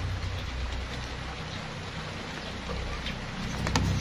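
Steady background noise with a low hum, and a few light clicks near the end as the circuit board is handled.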